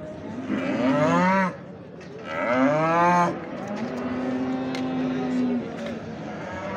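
Cattle mooing close by: two loud moos in quick succession, then a longer, quieter, steady one.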